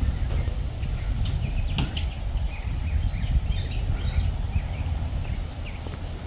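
Breeze buffeting the microphone as a steady low rumble, with scattered short, high bird chirps over it.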